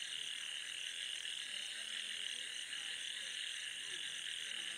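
A steady night chorus of frogs, a continuous high-pitched calling with scattered lower croaks.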